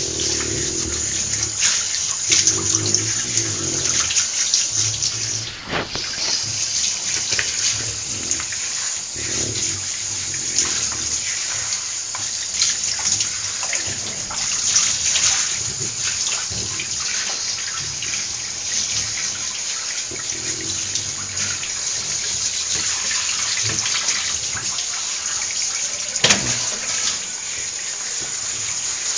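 Handheld shower head spraying water steadily onto a dog's coat and into a bathtub. The spray briefly dips about five and a half seconds in, and there is a sharp click near the end.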